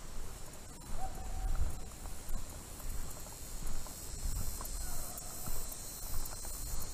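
Open-field ambience: uneven wind rumble on the microphone over a steady high insect drone. Two short, faint, hoot-like calls sound about a second in and again about four seconds later.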